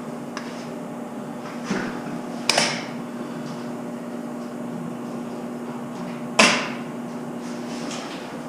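A steady electrical hum from a well-pump control setup, with three sharp clacks about two, two and a half and six and a half seconds in. The hum stops shortly before the end.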